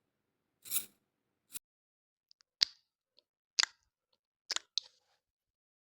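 A short swish, then a series of about five sharp clicks or snips, roughly one a second, with dead silence between.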